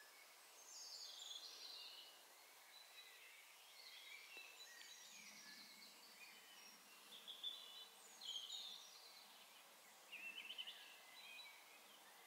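Faint birdsong: short bursts of quick, high chirping and warbling notes, repeated every couple of seconds over a low background hiss.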